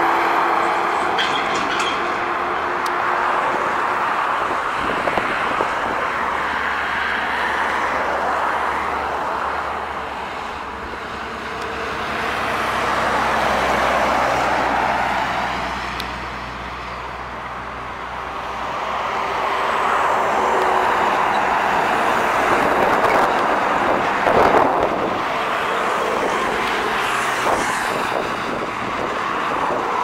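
Highway traffic with heavy trucks passing: a steady tyre-and-engine roar that swells and fades as each vehicle goes by, with the low hum of diesel engines through the middle.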